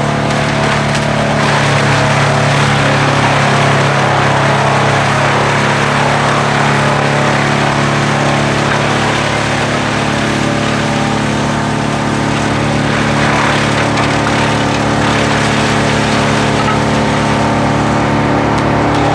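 Large wood chipper driven by a Fendt 936 tractor, its engine running steadily under load while the chipper chews through brush and branches fed in by a crane grapple. The crackling of the wood being chipped is heaviest in the first half.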